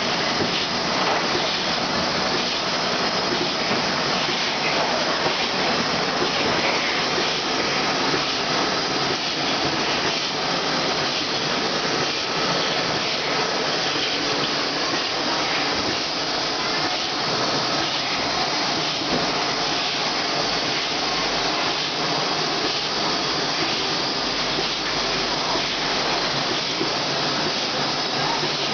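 Rotary cooking-oil filling and capping machine running: a steady, even mechanical noise that holds the same level throughout, with no distinct strokes standing out.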